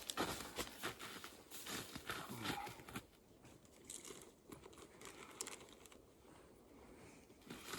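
Light crinkling and rustling of plastic being handled, busiest in the first three seconds, then a few faint scattered clicks.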